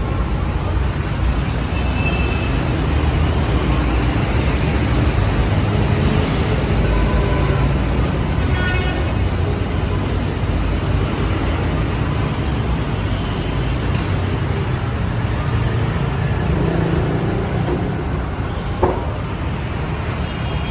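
Mori Seiki SL-25MC CNC lathe running a test program: a steady machine hum, with one sharp click near the end.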